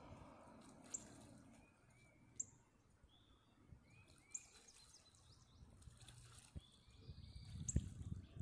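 Birds calling faintly: short, repeated chirps every second or so, with a few sharp ticks and a low rumble that grows near the end.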